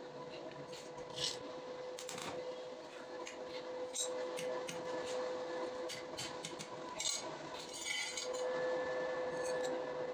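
Steel bars and a flat steel strip being handled and laid out on a concrete floor: scattered metal clinks and short scrapes over a steady background hum.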